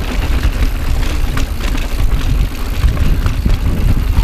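Wind buffeting an action camera's microphone as a 2018 Intense Carbine 29er mountain bike rolls fast over rough slickrock. A loud low rumble carries many short clicks and knocks from the tyres and bike rattling over the rock.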